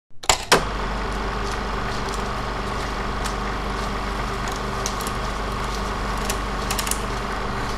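Logo intro sound effect: a steady machine-like whir with a low hum and scattered clicks, opening with two sharp hits.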